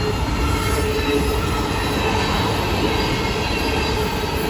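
BNSF freight train cars rolling past at speed, a loud steady rumble of steel wheels on the rails, with faint steady tones over it.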